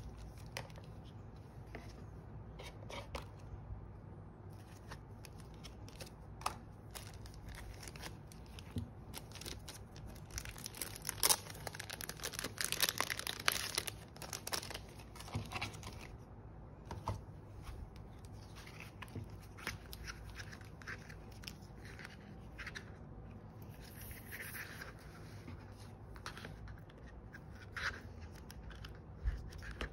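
Clear plastic photocard sleeves crinkling and rustling as cards are handled, with light taps and clicks of the cards, and a longer, louder stretch of crinkling about a third of the way in.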